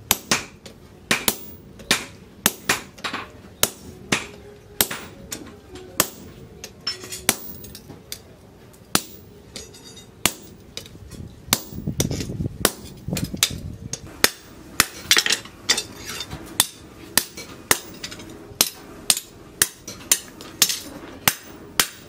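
A hand hammer strikes a handled cutting chisel set on the edge of a leaf-spring steel knife blade, which rests on a steel post anvil. The blows are sharp, ringing metal-on-metal strikes in a steady run of about two a second.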